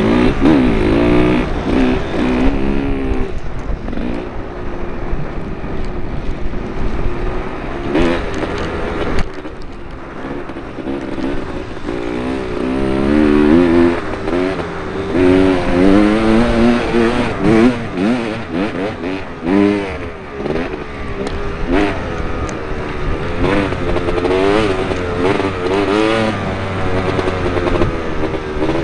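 Two-stroke Kawasaki KX 250 motocross engine being ridden hard, its pitch rising and falling over and over as the throttle opens and closes, with the KDX 250 enduro bike ahead also running.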